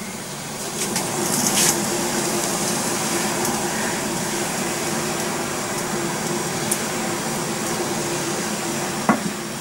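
Saucepan of water with noodles at a boil, a steady rushing noise, while a wooden spoon stirs the noodles with a few light knocks against the pan.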